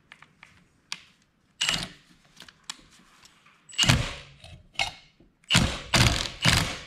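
Impact wrench fired in short bursts, about six, coming closer together near the end, on the centre bolt of a gear puller. The puller is pressing a 168F diesel's flywheel off its tapered crankshaft, where it is still stuck tight.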